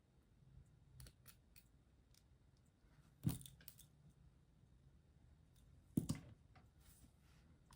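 Faint handling noise and small clicks as silver earrings are put on, with two sharper clicks about three and six seconds in.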